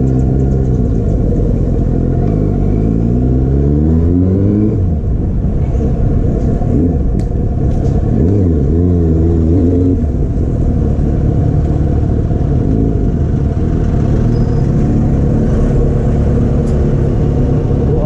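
Yamaha FZ6's 600cc inline-four engine, heard from the rider's seat, revving up from about two seconds in, dropping back near five seconds, rising and falling briefly around eight seconds, then running at low, fairly steady revs.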